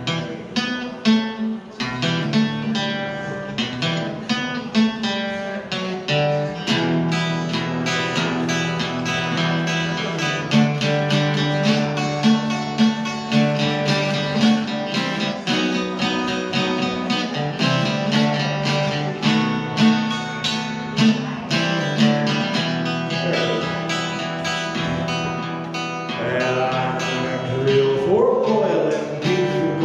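Archtop guitar strummed in a steady rhythm, chords ringing: the instrumental intro to a folk song.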